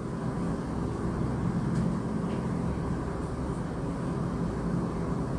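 Steady low machine hum and rumble, with a couple of faint scratches of a marker drawing on a whiteboard.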